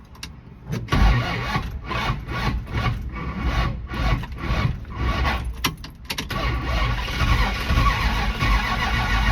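1974 Dodge Dart's starter cranking the engine with an even beat of about two turns a second for roughly five seconds. The engine catches about six seconds in and keeps running.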